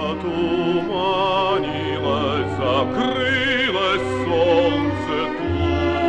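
Orchestral music from an old operatic-style recording: a melody with wide vibrato over a steady bass, with strings prominent.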